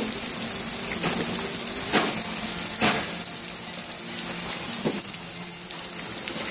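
Heavy tropical downpour: a dense, steady hiss of rain pelting a swimming pool's surface, with water pouring off the roof edge. A few sharper splashes stand out, the loudest about 2 and 3 seconds in.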